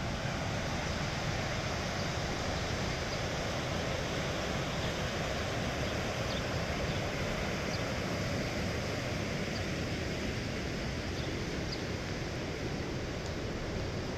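The Deschutes River rushing over shallow rocky rapids: a steady, even rush of water.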